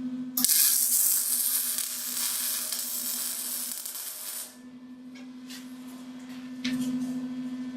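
MIG welder laying a tack weld: the arc crackles and sizzles steadily for about four seconds, then stops. A steady low hum, from the welding equipment, runs under it, with a few short clicks afterwards.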